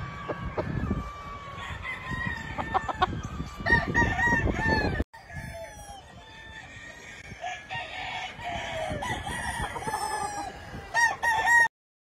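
Gamefowl roosters crowing, several crows overlapping, with clucking between them. The sound breaks off sharply about five seconds in and stops abruptly near the end, right after a loud crow.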